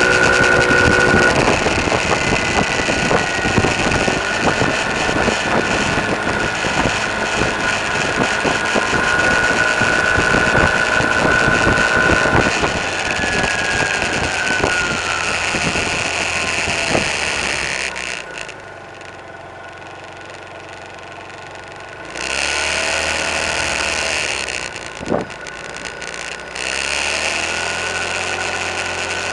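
Engine and road noise of a small vehicle being ridden down a street, heard from on board. Near the middle the engine pitch falls as it slows. About two-thirds of the way through it goes much quieter for around four seconds, then the engine picks up again.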